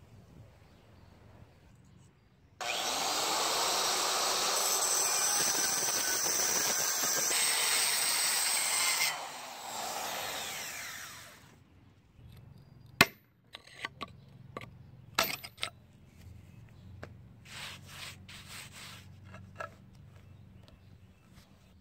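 Corded electric angle grinder cutting into a concrete paver: it starts abruptly a couple of seconds in, runs loudly for about six seconds, then eases off and winds down. A sharp knock and a few light clicks and scrapes follow as the paver is handled.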